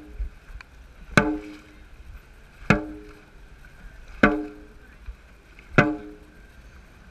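Dragon boat drum struck four times at an even beat about a second and a half apart. Each hit is a short booming ring that sets the pace for the paddlers' strokes.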